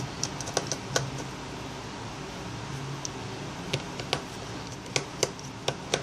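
Light, sharp clicks and taps of tiny metal screws and a precision screwdriver against an iPhone 5's frame, as the small screws are taken out and set down. There are about ten irregular clicks, a few near the start and more in the second half.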